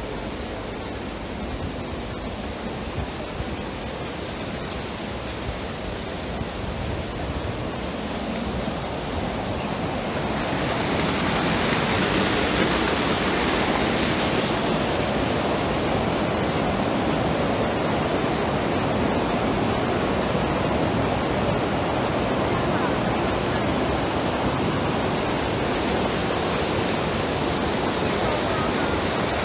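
River water rushing over rapids and a low weir below the footbridge, a steady rush that grows louder about ten seconds in.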